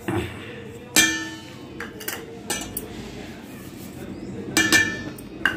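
Clinks of a ceramic bowl knocking against a stainless steel mixing bowl as ground rusk powder is tipped in, the steel ringing briefly after the louder knocks, about a second in and twice near the end.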